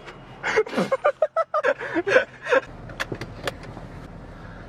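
A person's voice in short, unclear exclamations for about two seconds, then three sharp clicks over a low steady hum.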